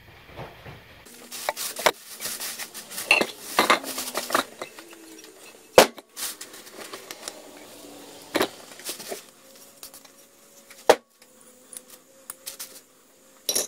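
Plastic garbage bag rustling as disassembled vise parts are taken out of it, with the metal parts clinking and clanking against each other and the bench. Several sharp knocks stand out, the loudest about six, eight and a half and eleven seconds in, some leaving a short metallic ring.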